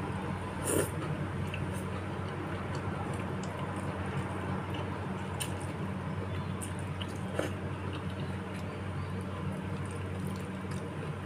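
Close-up eating sounds: wet chewing and slurping of bakso meatball soup with spinach, with a few short clicks, the sharpest about a second in. A steady low hum runs underneath.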